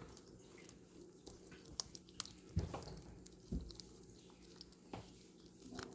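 Cats licking and chewing food: faint, irregular wet smacks and clicks, with two dull thumps about two and a half and three and a half seconds in, under a steady low hum.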